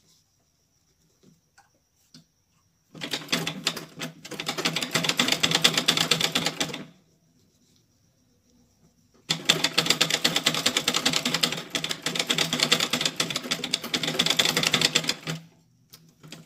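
Old black domestic sewing machine stitching in two runs, about four seconds and then about six seconds, with a short pause between: fast, even needle clatter while fabric is topstitched.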